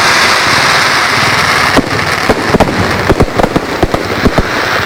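Aerial fireworks going off: a dense crackling hiss for the first couple of seconds, then a rapid, irregular string of sharp bangs, several a second.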